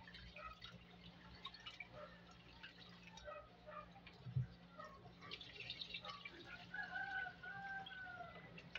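Hands swishing and rubbing raw rice in water inside an aluminium rice-cooker pot, with small splashes and drips; near the end the pot is tipped to pour off the cloudy rinse water. A faint drawn-out call rises and falls about seven seconds in.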